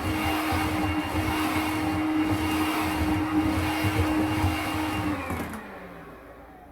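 Makita cordless stick vacuum with a carpet/floor nozzle running steadily, then switched off about five seconds in, its motor whine falling in pitch as it winds down.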